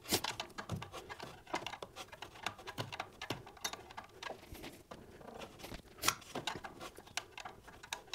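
Small irregular metal clicks and taps of a 9/16 wrench working the adjustable alternator bar in short strokes, turning the turnbuckle to push the alternator out and tighten the belt. The sharpest clicks come right at the start and about six seconds in.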